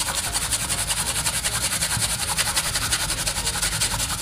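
Raw potato being grated by hand on a stainless steel box grater, in quick, even strokes of about five a second.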